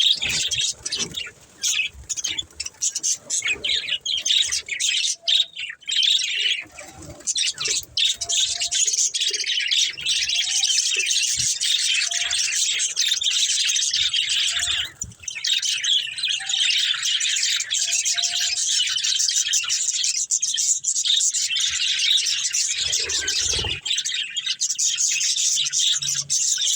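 Several budgerigars chirping and chattering, a dense run of high, rapid calls that is patchy at first and then nearly unbroken, with a brief pause about halfway through.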